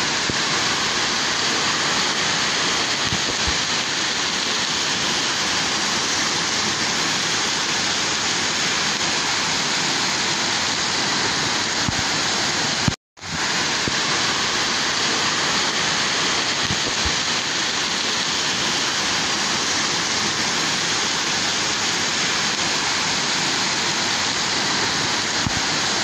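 Steady rush of a waterfall showering down over a rock overhang, heard from close under the falling spray, with the stream rushing over rocks below. The sound cuts out for a moment about halfway through.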